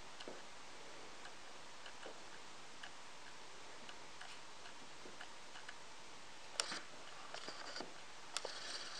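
Faint, light ticks and clicks at an uneven pace, then a few louder, scratchy clicks and rustles in the last few seconds.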